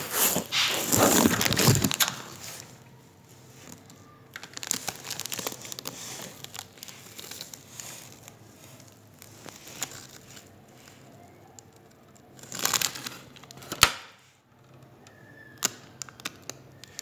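Handling noise: two loud bursts of rustling and crinkling, one at the start and one about three-quarters of the way through, with scattered small clicks and one sharp click soon after the second burst.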